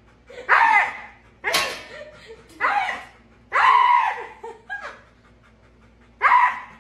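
A husky screaming in short, human-like yowls, about six of them with brief pauses between, as a frightened dog protests at being led from a grooming tub on a leash.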